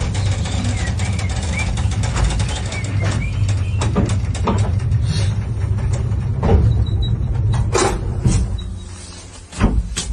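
Old Soviet-era passenger elevator travelling in its shaft: a steady low rumble with irregular metal rattles and clanks. The rumble dies down near the end and a single loud clunk follows as the car stops.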